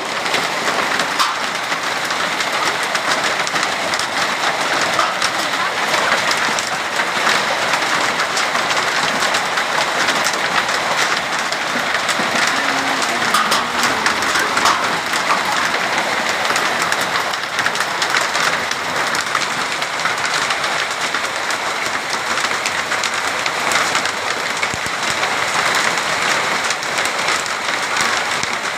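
Heavy rain mixed with hail pelting down, a steady loud hiss full of sharp ticks from hailstones striking.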